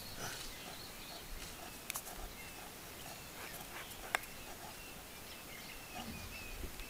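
Small birds chirping repeatedly over a quiet outdoor background, with two sharp snaps about two and four seconds in.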